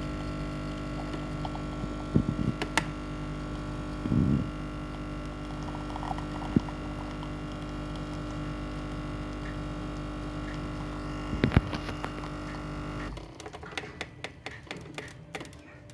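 Iperespresso capsule coffee machine humming steadily as it pumps coffee into the cup, then cutting off abruptly about three seconds before the end. A few short knocks come during the brew, and light clicks follow the stop.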